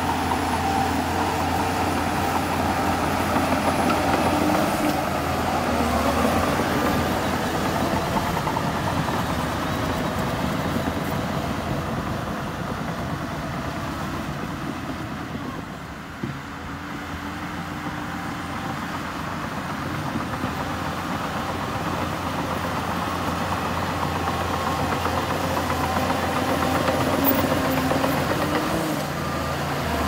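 Heavy diesel engine of a Shantui bulldozer working, its note rising and falling with the load. It eases off about halfway through and then builds up again.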